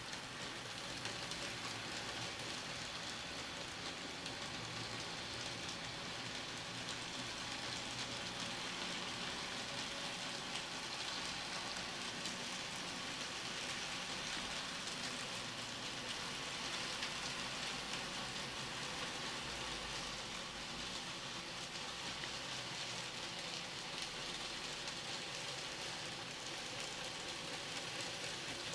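N-gauge model freight train running around a tight curve of track: a steady hiss of many small wheels rolling on the rails.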